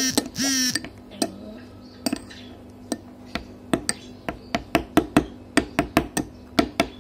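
Metal spoon clinking and scraping against a glass bowl while sticky slime is worked off it: a series of sharp clinks that come faster in the second half, about two or three a second. A short, loud squeal with a wavering pitch opens it.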